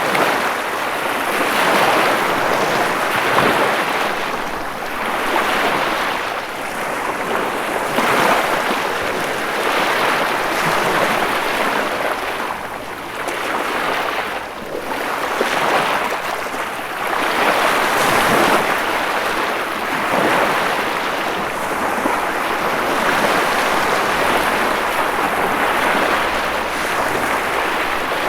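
Ocean waves breaking and washing in, a continuous surf wash that swells and eases every couple of seconds.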